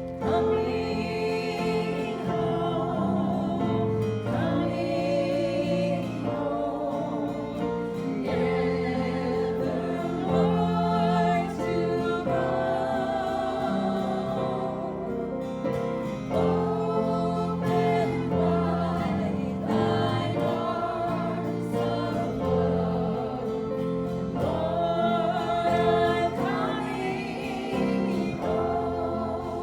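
Gospel song sung by voices with instrumental accompaniment.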